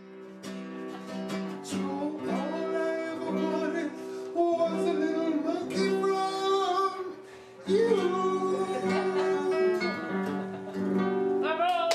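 A song with guitar accompaniment and a man singing.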